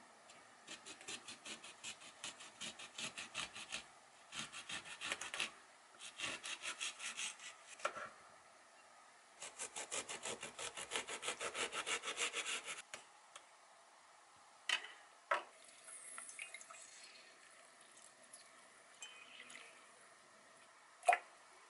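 Knife sawing through a lemon on a wooden cutting board: quick back-and-forth strokes, about four a second, in four runs with short pauses between them. A few sharp knocks follow in the last third.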